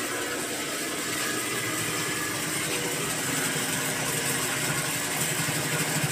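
Singer sewing machine stitching cloth, a steady mechanical whir that grows stronger a little over four seconds in.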